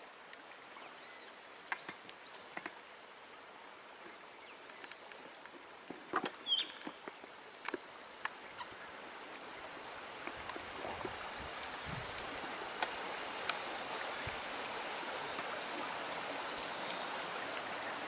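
Flowing water of a shallow rocky stream, a steady rushing that grows louder through the second half, with a few short high bird chirps and scattered light clicks.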